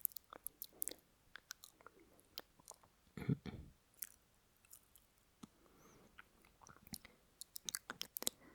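Lip and mouth noises recorded close to the microphone: a scatter of small wet clicks and smacks, with a louder breath about three seconds in and fainter breaths near the end.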